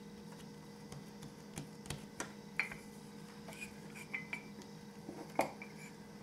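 Wooden rolling pin knocking on a wooden tabletop as it is taken up and laid on the dough, then rolled, with a handful of light knocks and clicks. The sharpest come about two and a half seconds in and near the end, over a faint steady hum.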